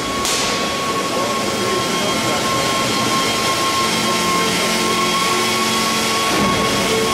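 Steady machine noise with hiss and a continuous high whine from a hot-forming machine shaping the nose of a red-hot steel shell body. The hiss thins a little just after the start.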